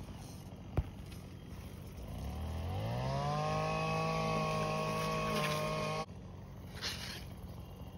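A small engine revving up about two seconds in, then holding a steady high pitch for about three seconds before cutting off abruptly. A single sharp click sounds near the start.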